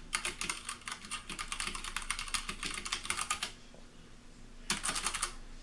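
Typing on an Akko 9009 retro mechanical keyboard with Cherry MX Brown switches: a fast run of key clicks for about three and a half seconds, a short pause, then a brief second flurry near the end.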